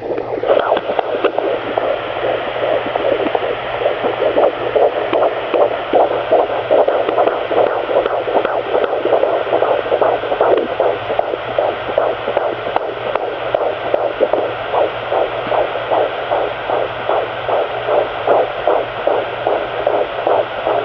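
Fetal heartbeat at about 17 weeks' gestation, picked up by a pocket fetal Doppler: fast, regular whooshing pulses over the device's hiss and a steady low hum.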